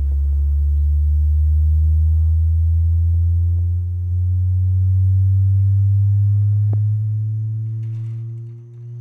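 Harbinger VARI VS18 18-inch powered subwoofer playing a slow rising sine-tone frequency sweep at max volume, climbing from about 60 Hz to about 120 Hz with overtones. It is clipping throughout and its built-in limiter is turning it down; the level dips briefly about four seconds in and again near the end.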